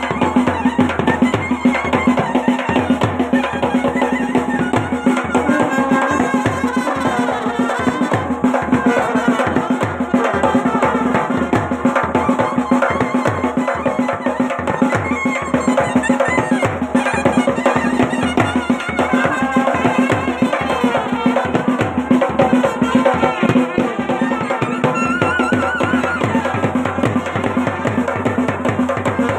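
Himachali folk band baaja playing: drums beating steadily under a wavering melody and a steady drone.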